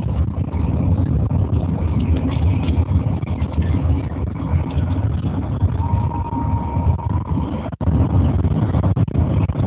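Steady low road and engine rumble heard from inside a moving vehicle's cabin, with a brief faint steady tone about six seconds in.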